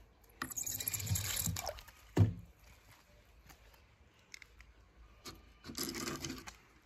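Toy cars splashing into a pool of water: a splash of about a second early on and another near the end, with a sharp knock about two seconds in.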